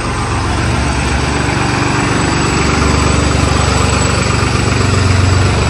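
Diesel engine of a New Holland 3630 tractor running steadily at low engine speed, heard close up.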